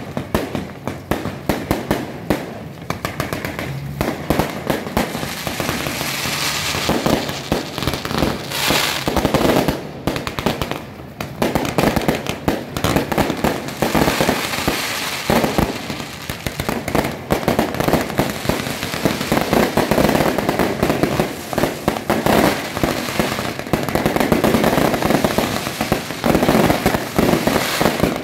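Firecrackers and aerial fireworks going off in a dense, continuous stream of crackles and bangs, growing louder and denser in the second half. They are set off as a welcoming salute for a Mazu palanquin.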